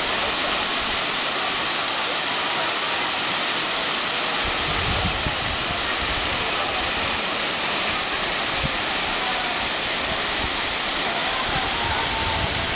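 The Middle Falls of the Gooseberry River pouring over rock ledges: a steady, loud rush of falling water.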